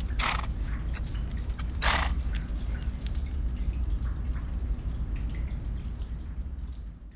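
Cave soundscape of water dripping into a pool, with scattered small drips over a steady low rumble. Two louder splashes come just after the start and about two seconds in. The whole sound fades away near the end.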